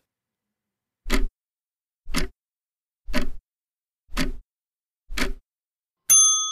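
Clock-ticking sound effect timing the answer pause: five ticks, one a second, then a bell ding about six seconds in that rings on and fades.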